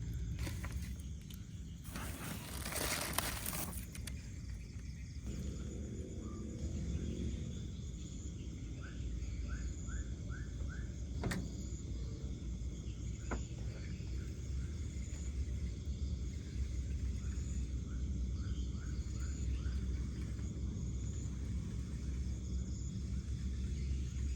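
Night outdoor ambience: insects chirping in faint, evenly repeated pulses and, twice, a short run of about five quick chirping calls, over a steady low rumble. A brief rustling noise comes about two seconds in, and two sharp clicks come near the middle.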